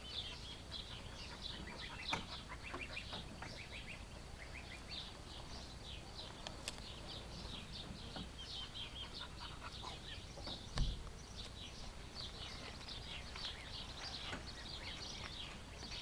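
Small birds chirping continuously, many short high chirps in quick succession, with a dull thump about eleven seconds in.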